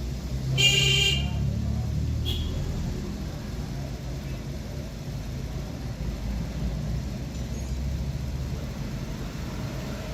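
Steady low vehicle rumble. About half a second in, a brief loud high-pitched toot cuts across it, followed by a fainter short beep about two seconds in.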